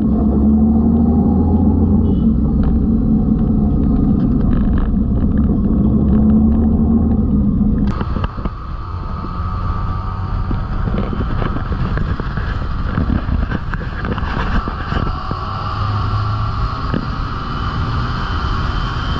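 Motorcycle engine running steadily while riding in traffic, a low even hum. About eight seconds in the sound changes abruptly at a cut to a rushing road and wind noise over the engine.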